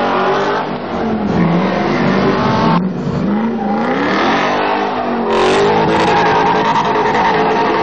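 Car engine revving up and down with tyre screech as the car drifts in tight donuts. The sound changes abruptly twice, about 3 and 5 seconds in, then the engine holds at high revs.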